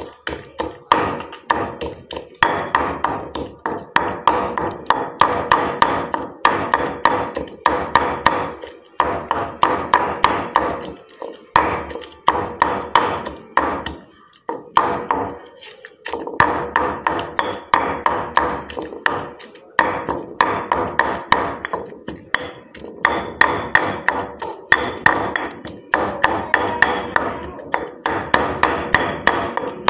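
Pestle pounding grilled eggplant, chili and herbs in a mortar: quick, regular strokes with a few short pauses, mashing the paste for Thai eggplant soup.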